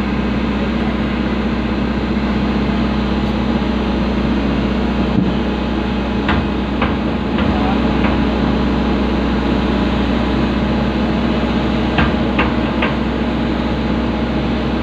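Excavator's diesel engine running steadily with a constant hum, heard from inside the operator's cab. A few light clicks come in two groups of three, about six seconds in and again near twelve seconds.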